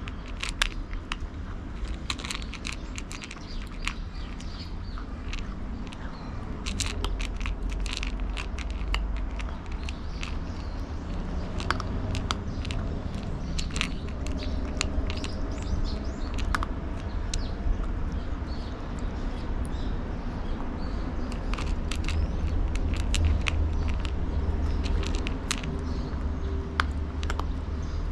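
A cat chewing and crunching food from a bowl, with irregular clicking bites, over a steady low rumble.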